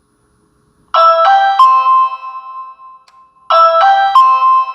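Ring Video Doorbell 2 chime set off by pressing its button: a three-note electronic chime played twice, about two and a half seconds apart, the last note of each ringing on and fading.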